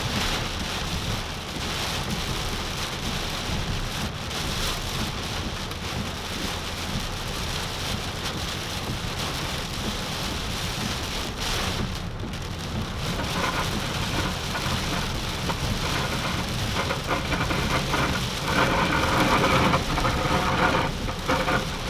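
Torrential tropical-storm rain pouring down and drumming on a vehicle, a steady dense hiss that grows louder near the end.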